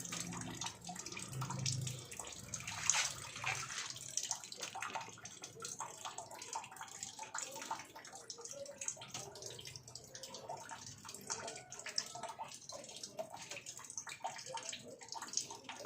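Tap water running from a faucet, with a constant patter of small irregular splashes as a cat drinks from the stream.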